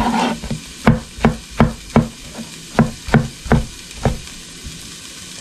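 Chef's knife chopping a tomato on a plastic cutting board: sharp knocks of the blade hitting the board, about three a second in short runs, stopping about a second before the end.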